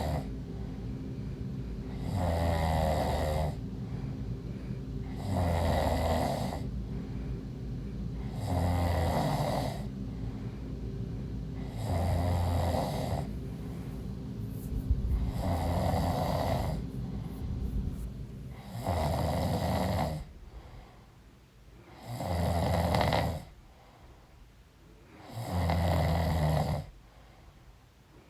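A pregnant woman snoring in her sleep, in slow, regular snores about every three and a half seconds, eight in all. A low steady hum underneath fades away about two-thirds of the way through.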